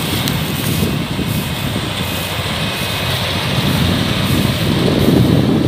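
Yanmar 850 rice combine harvester running under load as it cuts and threshes rice, its diesel engine and machinery making a loud, steady din that grows a little louder near the end as it comes closer.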